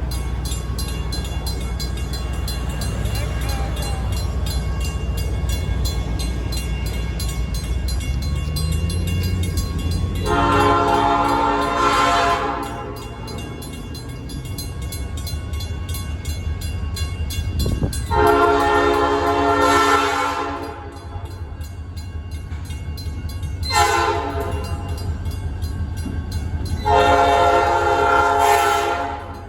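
Locomotive horn sounding the grade-crossing signal: two long blasts, a short one and a final long one, over the low rumble of the locomotive's engine, which rises in pitch just before the first blast.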